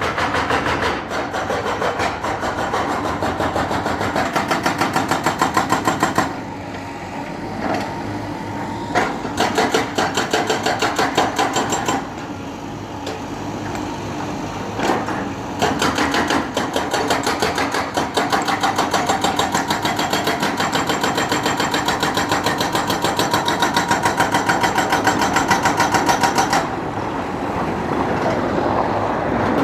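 Construction machinery running with a rapid, rhythmic mechanical clatter. It eases off and picks up again several times.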